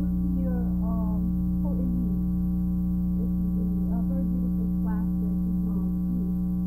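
Steady electrical hum, a stack of even tones that is the loudest thing heard, with faint speech underneath it.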